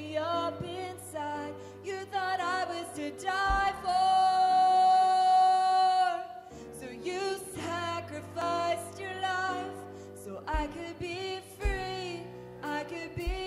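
Live worship song: a woman sings the lead over piano, bass guitar and drums. She holds one long high note from about three and a half seconds in.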